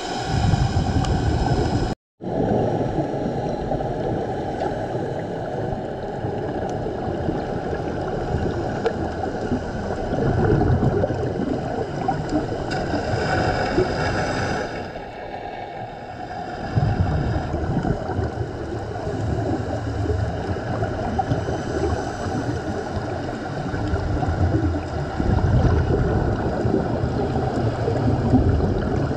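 A scuba diver's regulator breathing, heard underwater through the camera housing: rumbling, gurgling bursts of exhaled bubbles every several seconds, with one hissing inhalation about halfway through. The sound cuts out for a moment about two seconds in.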